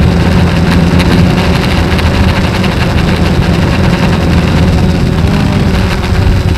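DJI Phantom quadcopter's motors and propellers humming steadily in flight, heard loud and close from a camera mounted on the drone, with a rushing noise over the hum.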